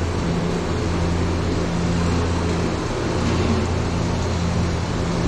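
Storm sound effects in an indoor dark ride: a steady rushing of wind and rain over a low, droning rumble that fades and returns every second or two.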